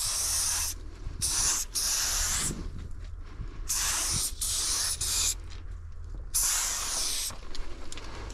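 Aerosol spray paint can spraying in short bursts of hiss, about six in all with brief pauses between them, as paint lines are laid on a boxcar's side.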